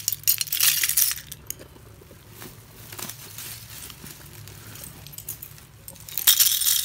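Thin, brittle pieces of roasted multani mitti (Fuller's earth clay) clattering and clinking as a handful is tipped onto a pile of loose flakes. There is one burst at the start lasting about a second, a few stray clicks as pieces settle, and a second burst near the end.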